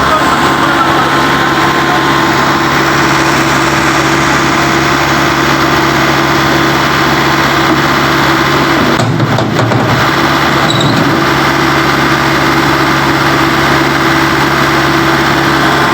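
A vehicle engine running steadily at a constant speed, its hum even and loud, with a brief dip in the low tone about nine seconds in.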